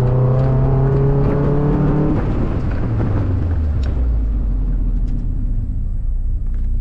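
2002 Mazda Miata's 1.8-litre four-cylinder engine pulling under load with its pitch rising, then about two seconds in the throttle closes and the engine drops to a low, steady rumble as the car slows.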